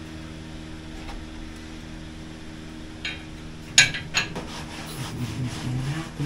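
A steady low hum, then a few sharp metallic clanks and knocks about three and four seconds in from pipes and tools being handled in a boat's engine-room bilge. A low, indistinct voice starts near the end.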